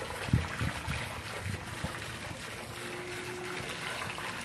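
Miniature golf ball putted and banking off the course rails: a few soft low knocks in the first two seconds, over a steady outdoor hiss.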